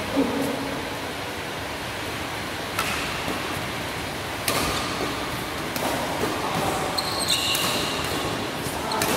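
Badminton rackets striking a shuttlecock during a doubles rally: several sharp cracks a second or more apart, one of them an overhead smash about four seconds in. Short high shoe squeaks on the court floor come around seven seconds in, over the steady hiss of a large hall.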